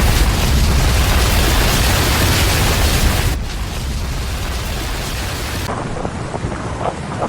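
Storm noise: heavy rain hiss over a deep rumble. It cuts off abruptly about three seconds in to quieter, thinner rain, and changes abruptly again about two seconds later.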